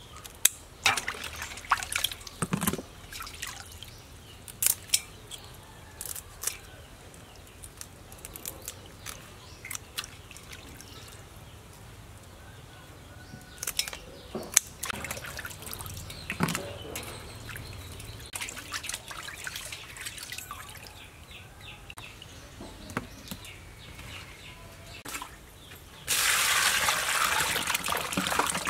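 Kitchen scissors snipping prawn shells and legs in scattered sharp clicks, with water dripping from the wet prawns. Near the end, hands slosh and splash water in a stainless-steel bowl while washing green onions.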